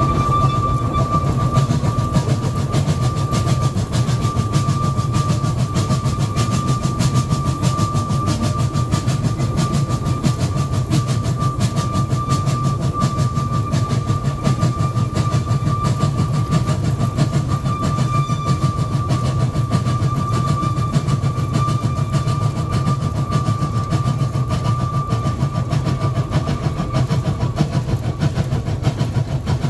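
Wood-fired Fowler 0-4-2 tank steam locomotive heard from the footplate while running, a steady low rumble with a dense clatter. A steady high tone runs through most of it and fades out near the end.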